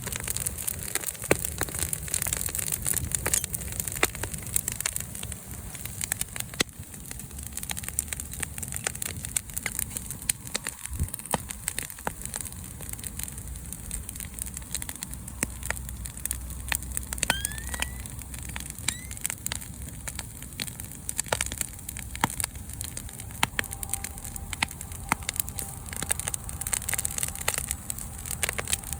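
Wood bonfire crackling, with frequent irregular sharp pops and snaps over a steady hiss of burning.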